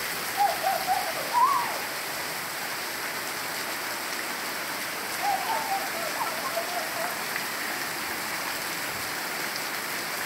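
Heavy rain pouring steadily. Short wavering calls rise over it twice, about half a second in and again around five seconds in.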